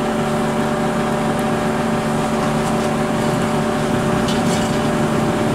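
Steady machine hum with several fixed tones, unchanging in pitch and level.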